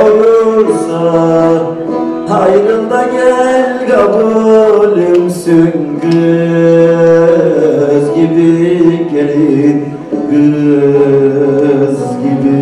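A man singing a Turkish folk song in long phrases that waver in pitch, accompanied by his own strummed bağlama (long-necked saz).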